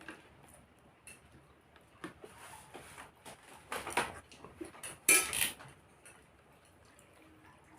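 Cutlery clinking and scraping against a plate during a meal, a few scattered short clinks with the loudest cluster about five seconds in.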